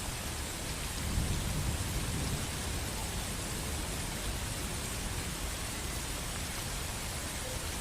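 Steady rain falling as an even hiss, with a brief low rumble swelling about a second in.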